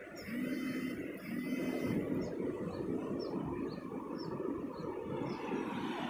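Continuous rushing of sea surf on a beach, with a steady motor hum that sounds twice in the first two seconds and small bird chirps repeating about twice a second.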